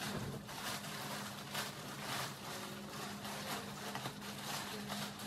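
Plastic mailer bag rustling and crinkling in a run of irregular small crackles as it is handled and opened.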